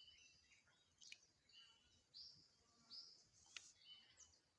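Faint birdsong: many short chirps and whistled notes from small birds, coming every half second or so, with a couple of faint clicks.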